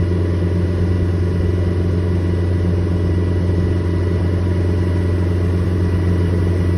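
John Deere 331G compact track loader's diesel engine running steadily at full throttle, heard from inside the cab, with the auxiliary hydraulics held in extend for calibration.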